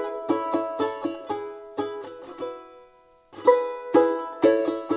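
Background music: a brisk tune of quick plucked-string notes. The notes thin out and stop for a moment about three seconds in, then the tune picks up again.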